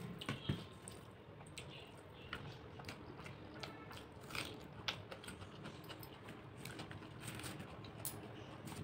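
A person chewing and biting food close to the microphone, eating rice and fried fish and vegetables by hand, with many small wet mouth clicks and a sharper click about half a second in.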